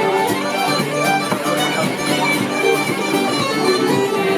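Traditional Irish music led by a fiddle, playing a continuous tune.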